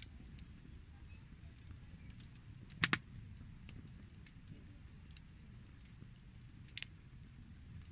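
Wood campfire crackling: scattered sharp pops over a low steady rumble, the loudest a quick double pop about three seconds in and another near seven seconds.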